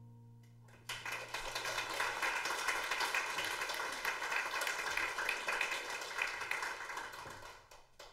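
A guitar's final chord rings and fades. About a second in, an audience breaks into applause, which goes on for about six seconds before dying away near the end.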